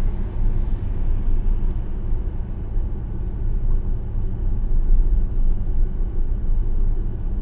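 Road and tyre noise heard inside the cabin of a Tesla Model S P85D cruising at about 30 mph: a steady low rumble with no engine note.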